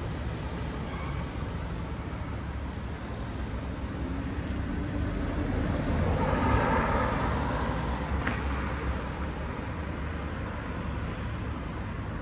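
Street traffic heard from a moving bicycle: a steady low rumble, with a car passing that swells and fades about six to seven seconds in, then one sharp click shortly after.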